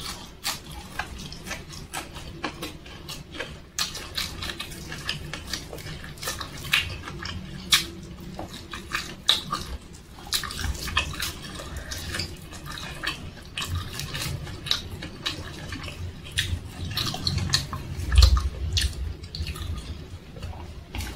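Close-miked eating sounds of a person eating with her fingers: wet chewing, lip smacks and mouth clicks scattered throughout. There are a couple of low thumps, the strongest about eighteen seconds in.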